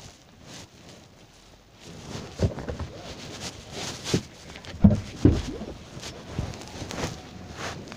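Phone handling noise: a sleeve rubbing over the microphone, with a few irregular low knocks and thumps. The loudest are two in quick succession about five seconds in.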